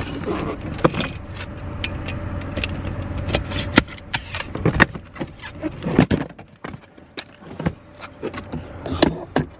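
Clicks, knocks and rattles of a hard-shell rolling suitcase being handled and lifted, over the steady hum of an idling car engine that mostly drops away about six seconds in.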